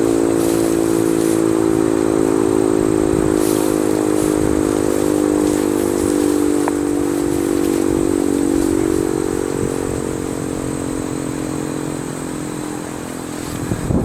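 Sentry 14V outdoor warning siren sounding a steady wail made of several close pitches held together, which sag slightly midway and grow quieter over the last few seconds.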